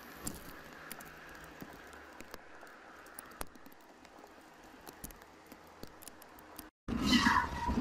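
Light rain pattering on a car windshield: a faint, steady hiss with scattered small ticks. Near the end the sound cuts out for a moment, and then louder street noise with a car horn tone begins.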